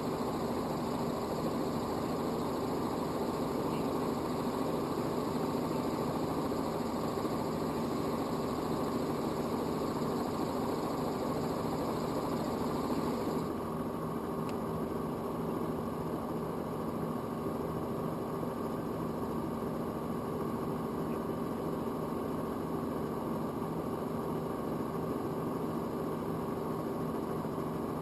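Robinson R44 helicopter running steadily, a constant drone of engine and rotor; about halfway through, the higher hiss drops away.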